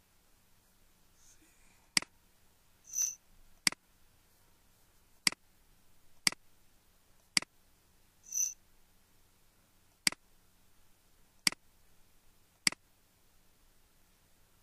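Computer mouse button clicking eight times at uneven intervals, about a second or two apart, with two short high beeps about three and eight seconds in.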